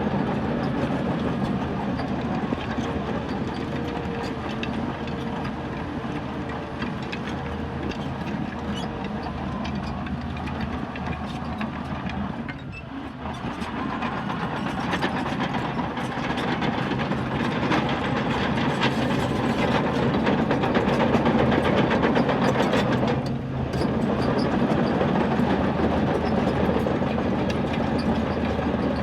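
Bulldozer's diesel engine running under load, with the steel crawler tracks clanking continuously as the machine moves. The engine sound drops briefly twice, about 13 and 23 seconds in.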